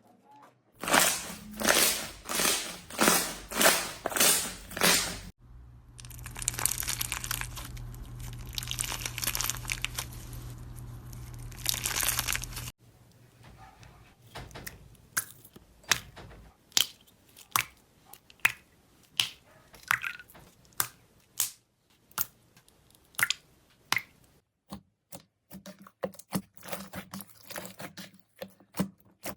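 Crunchy slime being squeezed and poked by hand. It starts with a run of about eight loud crunches roughly half a second apart, then several seconds of steady crackling, then a long stretch of quieter, scattered clicks and pops.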